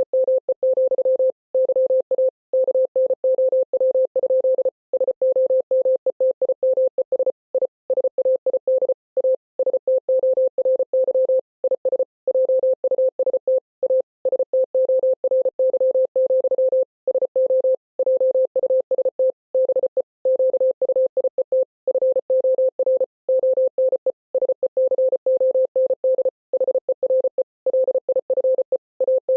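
Morse code: a single steady mid-pitched beep switched rapidly on and off in dots and dashes, with longer gaps between characters and words, spelling out the text of a speech.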